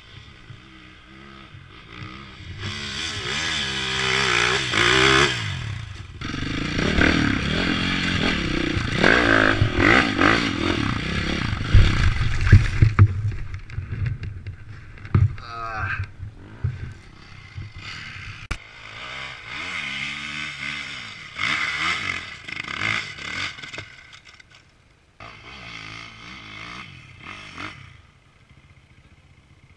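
Enduro dirt-bike engine revving hard in repeated surges, its pitch rising and falling, with scraping and clattering alongside. It is quieter in the first couple of seconds and again in the last few seconds.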